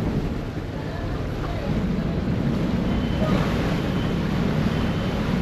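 Ferry's engines and propellers churning water as it pulls away from the wharf: a steady low rumble that grows louder about two seconds in, with wind on the microphone.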